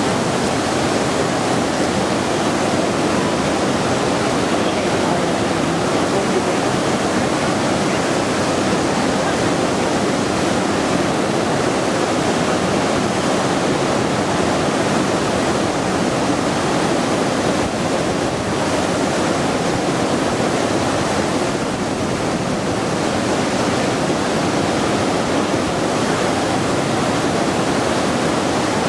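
Waterfall pouring: a loud, steady, even rush of falling water.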